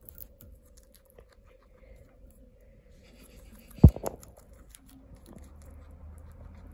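Guinea pig nibbling and chewing a leaf, faint crisp crunching clicks. About four seconds in, one loud thump, with a smaller knock just after.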